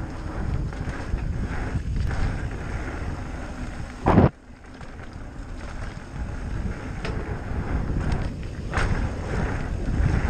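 Wind buffeting the camera microphone, with tyre and trail rumble as an e-bike rides along a dirt singletrack. About four seconds in there is one loud knock, after which the noise drops suddenly for a moment.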